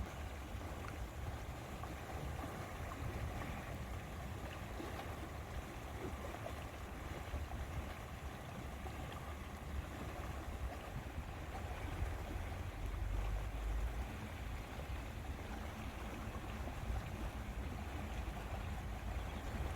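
Lakeside ambience: an even wash of water noise with gusty wind rumbling on the microphone, heaviest about two-thirds of the way in.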